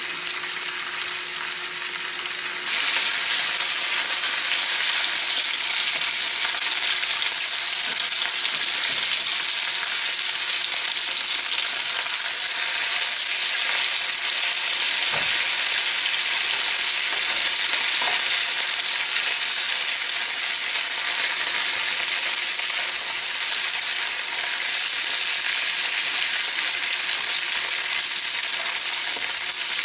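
Flour-dredged rabbit pieces sizzling steadily in hot oil in a frying pan as they brown. The sizzle gets louder about three seconds in.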